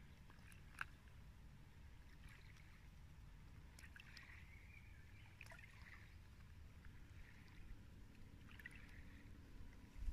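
Near silence: faint lapping of shallow water over a pebbly shoreline, under a steady low rumble, with a single sharp click about a second in.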